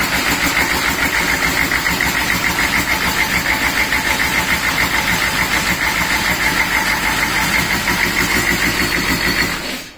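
6.5-litre V8 diesel engine with a centre-mount turbo running steadily on an engine stand, with a rapid, even pulse. It stops suddenly just before the end.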